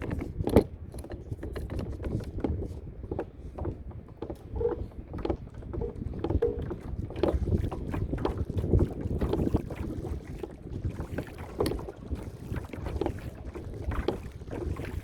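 A Hobie Outback kayak on open sea, with wind buffeting the microphone as a low rumble and many irregular small knocks and water slaps against the hull.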